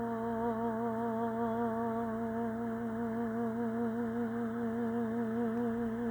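A singer's voice holding the final note of a hymn: one long, steady pitch with a gentle vibrato.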